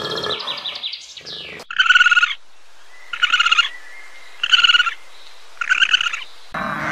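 A coati calling: four short, fluttering trilled chirps, evenly spaced a little over a second apart. Higher, falling chirps fade out at the start, and sheep start bleating just before the end.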